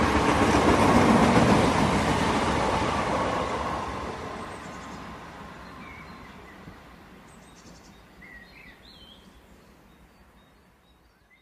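Running noise of a moving passenger train, loud at first and fading out steadily over about ten seconds, with a few faint chirps near the end.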